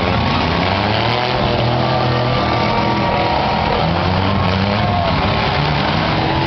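Several demolition-derby truck engines running and revving together, a loud, steady mix of engine notes whose pitches rise and fall.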